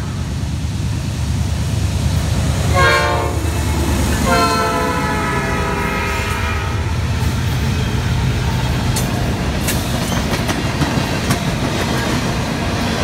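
Norfolk Southern diesel freight locomotives blowing their horn for a grade crossing as they pass: a short blast about three seconds in, then a long blast whose pitch drops as the lead unit goes by, over a heavy engine rumble. In the second half the locomotives give way to freight cars, their wheels clicking over the rail joints.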